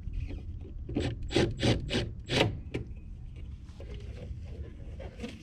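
About half a dozen short scraping, rasping strokes in quick succession, then a few fainter ones, from hand work on a furnace blower assembly, over a low steady hum.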